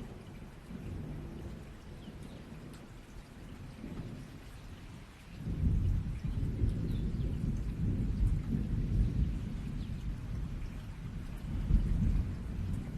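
Steady rain with rolling thunder: a low rumble swells up suddenly about five and a half seconds in and keeps rumbling over the rain to the end.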